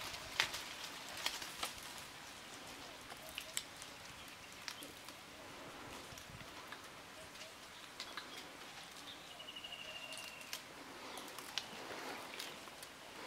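Quiet forest ambience with scattered light clicks and rustles. About nine and a half seconds in there is a short, rapid, high trill lasting about a second.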